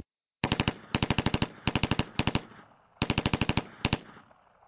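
Automatic gunfire in about five short bursts of rapid shots, roughly fourteen a second, starting about half a second in, with a fading tail after the last burst near four seconds.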